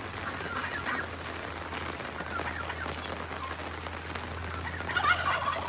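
Steady rain pattering, with farm poultry calling several times over it; the loudest calls come near the end.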